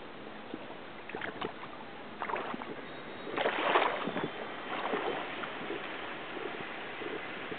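Water sloshing and splashing in irregular surges about once every second or so, the loudest about three and a half seconds in, over a steady hiss.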